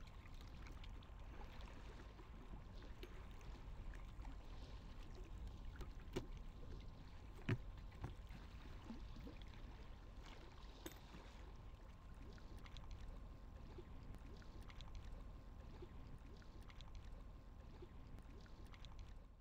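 Faint background noise with a low rumble and a thin steady hum, broken by a few soft clicks, the loudest about seven and a half seconds in.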